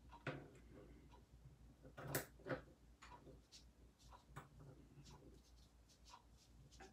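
Faint, scattered light clicks and taps from hands handling ribbon on a cutting mat, a couple of slightly louder taps about two seconds in.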